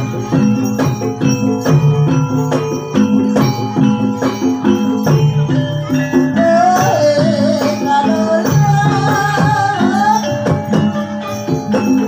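Live Javanese gamelan music for an ebeg horse dance: struck metallophones ring over a steady run of drum and percussion beats. A wavering, held melody line rises above them in the middle.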